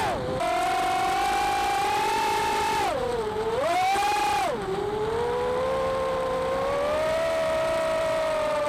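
Racing quadcopter's Emax RS2205-2600kV brushless motors and 4-inch propellers whining with throttle changes: the pitch drops sharply near the start, dips twice more in the middle, then climbs slowly.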